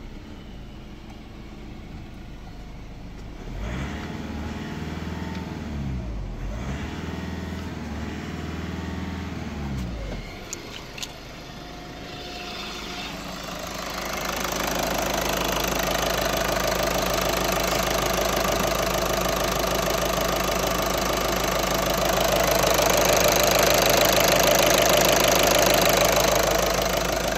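Volkswagen 1.6 TDI CAY four-cylinder common-rail diesel engine running at idle, around 1000 rpm. Its speed rises and falls a few times between about four and ten seconds in. From about fourteen seconds in the sound gets louder and turns to a steady diesel injector clatter, heard at close range over the open engine.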